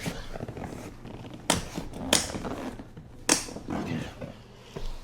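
A person shifting onto their side on a padded chiropractic table: three sharp knocks with short rustles. They come about a second and a half in, again half a second later, and once more about a second after that.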